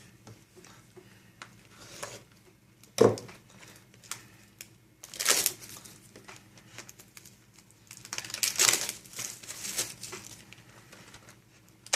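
Wrapping on a Yu-Gi-Oh booster box crinkling and tearing as it is unwrapped. Bursts of crinkling come about 5 s in and again from about 8 s, and a single sharp knock about 3 s in.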